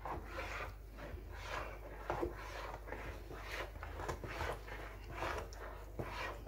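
A metal utensil stirring and cutting through a flour-and-water batter in a mixing bowl: soft scraping strokes, about two a second.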